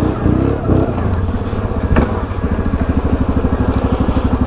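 ATV engine revving up and down briefly, then running at low revs with a fast, even chugging pulse as it pulls up a steep, rocky slope. A single sharp knock sounds about two seconds in.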